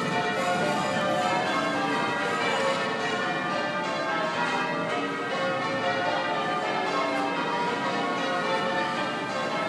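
Southwark Cathedral's tower bells ringing changes: many bells struck one after another several times a second, their tones overlapping and ringing on, at a steady level.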